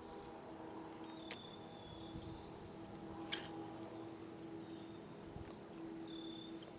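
Faint lakeside ambience: short, high, falling bird chirps over a low steady hum, with two sharp clicks about two seconds apart.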